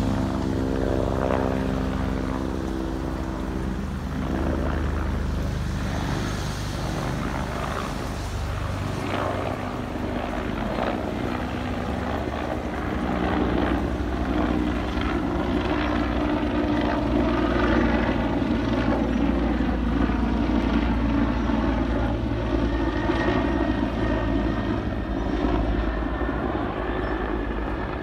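Police helicopter flying overhead, its rotor giving a steady rumble that grows somewhat louder in the middle stretch and eases a little near the end.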